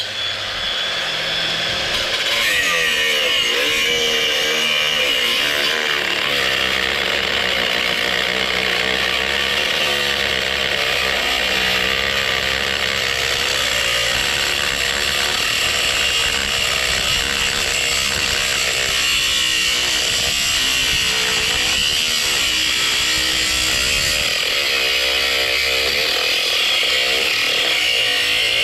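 Cordless angle grinder cutting through a scrap transformer's coil and steel core: a steady high whine, its pitch sagging and recovering over and over as the disc bites into the metal under load.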